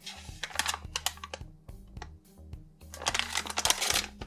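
Thin plastic squishy packaging crinkling and crackling as the bag is pulled open by hand, in two bursts, the second about three seconds in. Light background music plays underneath.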